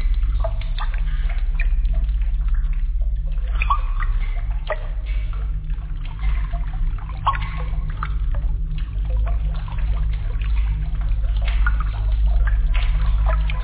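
Water dripping and trickling, with irregular plinking drops over a steady low rumble.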